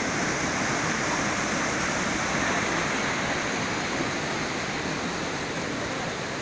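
Steady rushing of water from a muddy forest stream.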